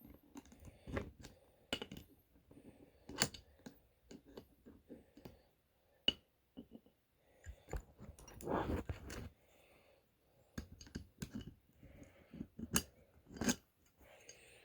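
Scattered light clicks and short metallic scrapes of a small Floyd Rose wrench and tremolo hardware being worked by hand, with a longer rustling scrape about eight seconds in.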